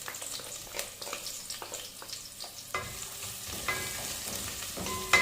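Onion and whole spices sizzling and crackling in hot oil in a pot while being stirred, with a few ringing clinks in the second half.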